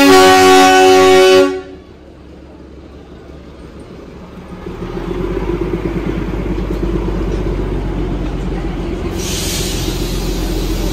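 Darjeeling toy train's horn sounding loudly, stepping up in pitch once and cutting off about a second and a half in. Then the train runs with a low rumble that swells about five seconds in, and a burst of hiss comes near the end.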